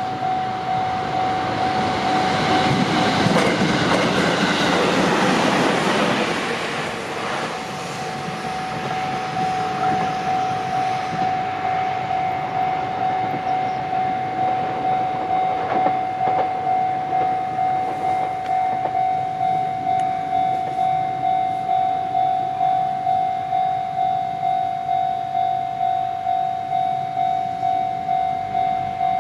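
Japanese level-crossing warning bell ringing in an even, quick rhythm throughout, while a train runs over the crossing, its rumble and wheel clatter rising about a second in, loudest around four to six seconds in and fading by about eight seconds. The bell keeps ringing after the train has gone.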